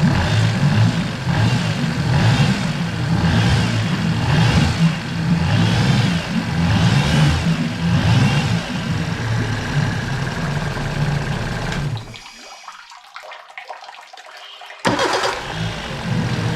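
A Suzuki-built 40 hp four-stroke fuel-injected outboard motor running in a test tank, with a regular swell about once a second. About 12 seconds in it cuts off, and some three seconds later it is restarted and runs again.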